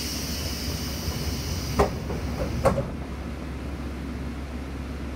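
Pneumatic doors of a diesel railcar opening: a hiss of released air, then two knocks about a second apart as the door leaves reach their stops. Under it the engine idles steadily.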